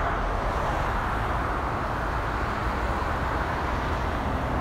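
Steady outdoor background noise: an even rushing hiss over a low, fluctuating rumble.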